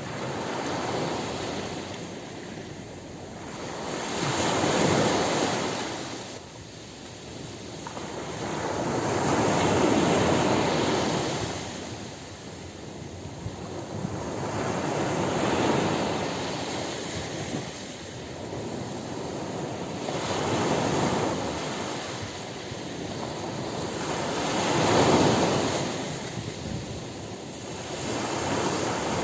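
Ocean surf breaking on a beach: the rush of water swells and fades as each wave comes in, about every five seconds, five times, the last one loudest.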